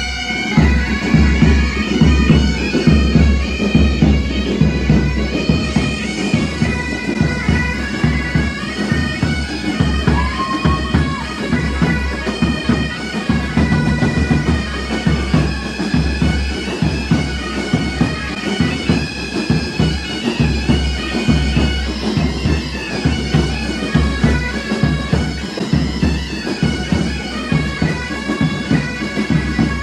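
School pipe band's bagpipes playing a march tune with the drones sounding continuously, over a steady low beat.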